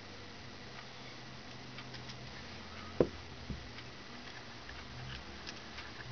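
A hand-forged axe and its leather sheath being handled: faint light clicks and rustles, with one sharp knock about three seconds in and a softer one half a second later, over a low steady hum.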